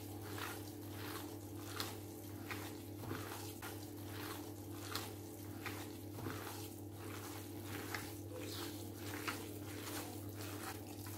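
Hand kneading a wet mixture of minced sardines, rice and spices: soft squelching strokes, about two a second, over a steady low hum.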